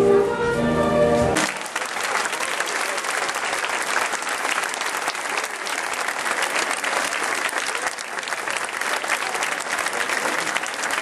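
Music ends abruptly about a second and a half in, and a large crowd breaks into applause, many hands clapping.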